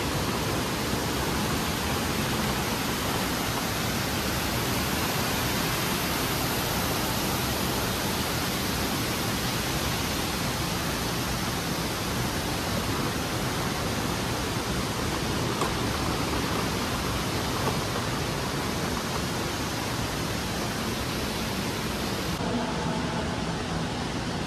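Steady rush of water from an indoor waterfall, a dense even hiss. Near the end the highest part of the hiss drops away.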